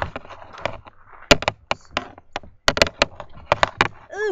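A string of sharp clicks and knocks in loose, irregular clusters, the loudest from about a second in.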